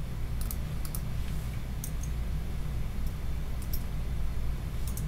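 Scattered computer keyboard keystrokes: short sharp clicks, singly or in quick pairs, a second or so apart, over a steady low hum.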